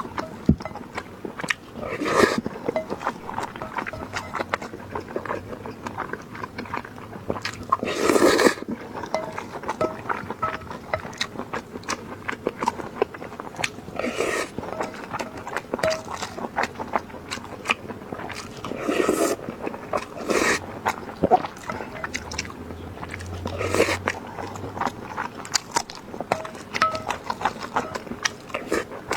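A person chewing and biting food, close to the microphone: a run of small wet clicks with a louder noisy burst every few seconds.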